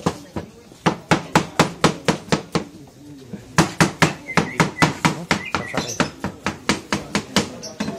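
Kitchen knife chopping fruit on a cutting board: quick, even knocks at about four a second, in two runs with a short pause between them.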